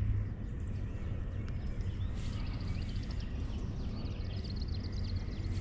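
Birds chirping over a low steady rumble, with a quick trill of repeated high notes near the middle.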